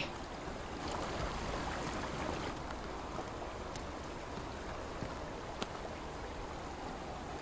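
Steady, even rush of flowing river water, with two faint ticks in the second half.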